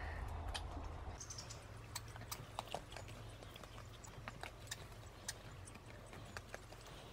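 American red squirrel cracking sunflower seeds on a feeder: irregular sharp clicks of shells splitting and husks dropping, a few a second, after a low steady rumble that stops about a second in.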